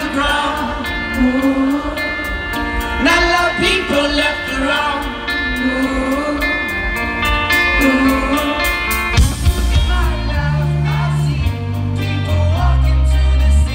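Live rock band: a male singer sings over electric guitar, with a steady ticking of hi-hat or shaker. About nine seconds in, a drum hit brings the full band in, with heavy bass notes.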